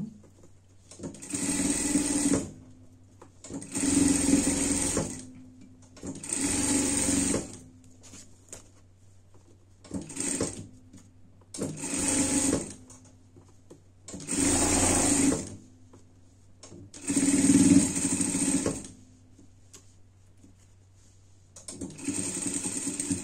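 Sewing machine stitching through padded fabric in short stop-and-go runs of one to two seconds, about eight times, with a low steady hum between runs.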